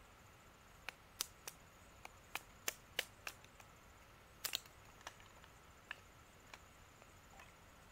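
Kindling being split by hand with a small blade: about a dozen sharp, irregular knocks of the blade into dry wood sticks, spread over several seconds, with a close double knock about halfway through.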